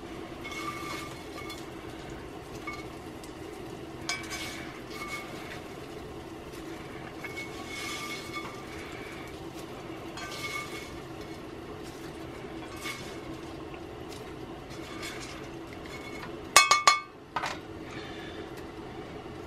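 A slotted spatula scraping fried potatoes out of a cast iron skillet and clinking against a plate in repeated scoops, with a few sharper clinks near the end, over a steady low hum.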